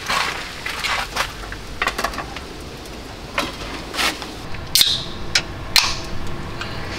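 Light clinks and taps of chopsticks on metal pans and bowls as food is served, with a few sharper clicks about five seconds in.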